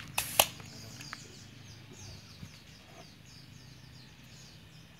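A couple of sharp clicks just after the start, then birds chirping softly with short, high, repeated calls over a quiet outdoor background.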